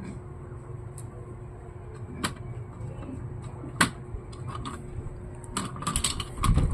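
Sharp clicks and light knocks from parts being handled inside an opened Asus X441U laptop: two separate clicks, the louder about four seconds in, then a quick run of clicks near the end, over a low steady hum.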